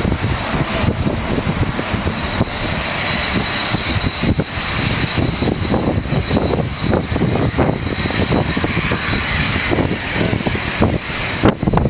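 Boeing 787-8's twin jet engines at takeoff thrust as the airliner accelerates down the runway and lifts off: a steady high whine over a broad rush of engine noise. Strong wind buffets the microphone throughout.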